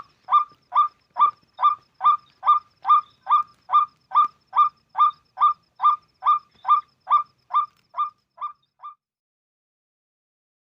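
Call of a white-breasted waterhen (ruak-ruak): a harsh honking note repeated evenly a little over twice a second. It grows fainter over the last few notes and stops about nine seconds in.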